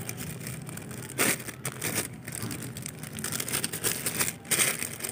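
Plastic clipper guide combs being handled and taken out: soft rustling with several light knocks and clicks.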